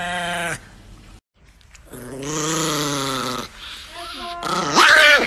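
Chihuahua growling: a steady, wavering growl that stops about half a second in. After a brief gap, a second growl lasts about a second and a half.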